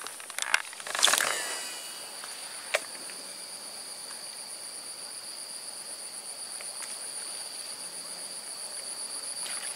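Insects calling steadily in two high, unchanging pitches. About a second in there is a sharp click followed by a short fading whir, and a single click a couple of seconds later.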